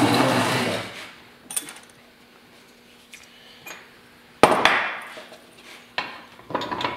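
Heavy cast-iron transmission case being handled and turned on a wooden block: a scraping rub at the start, a few light clicks, one sharp clunk about four and a half seconds in, and more knocks near the end.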